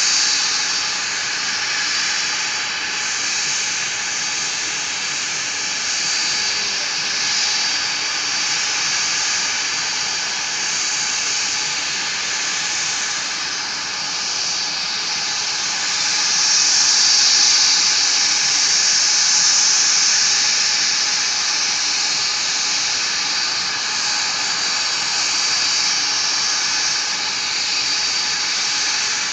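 SkyWest CRJ200 regional jet giving off a steady high-pitched jet whine over a hiss, swelling slightly about two-thirds of the way through.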